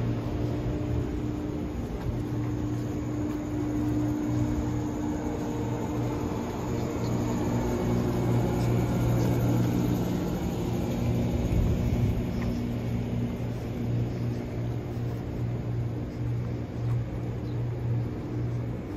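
Fujikyu Railway electric commuter train standing at the platform with its doors open, its on-board equipment humming steadily with a few low steady tones and fan-like noise. The low rumble swells briefly about ten to twelve seconds in.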